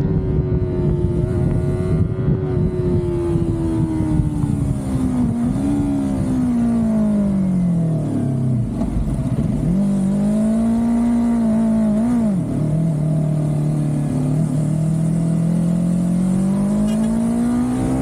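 Car engine running under way, its pitch sinking as it slows about halfway through, then climbing again, with a sudden drop near the end like a gear change before it rises steadily once more.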